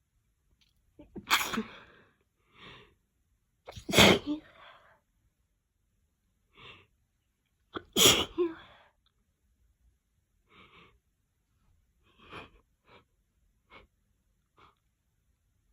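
Three loud, wet human sneezes, about a second, four seconds and eight seconds in, each a sudden explosive burst. Shorter, quieter breathy noises come between them and in the second half.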